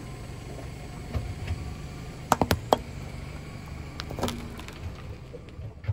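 Car tyre rolling over thick sticks of sidewalk chalk on asphalt, crushing them: a few sharp cracks about two seconds in, and another crunch about four seconds in, over a low steady rumble.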